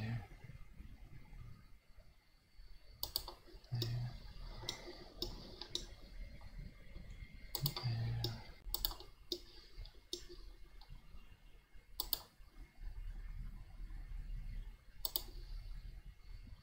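Computer mouse button clicks, single and irregular, a few seconds apart, as line points are placed one by one. A couple of short low hums come about four and eight seconds in.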